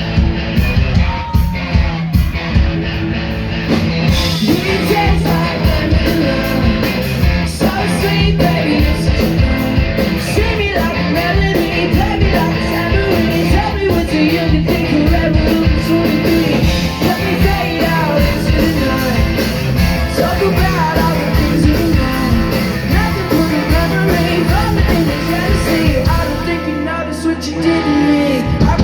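Live rock band playing loud, with drums and electric guitar, and singing coming in about four seconds in. Near the end the drums drop out briefly over a held bass note.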